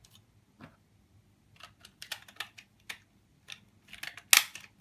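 Irregular plastic clicks and clacks from the Proscenic Suzuka robot vacuum's brush attachment being pulled out and handled, with one sharper, louder clack near the end.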